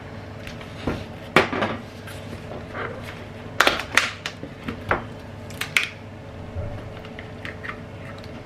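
Hard objects being handled, giving irregular sharp clinks and clacks, bunched together in the middle, over a faint steady hum.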